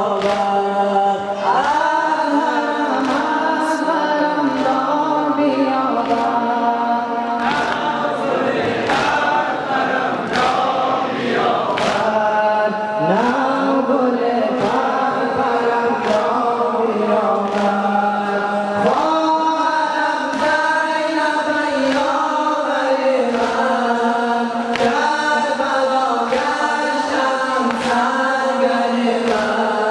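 Afghan noha (Shia mourning lament) chanted by male reciters through microphones, answered by a crowd of men singing in chorus, with rhythmic chest-beating (sina zani) strikes about once a second.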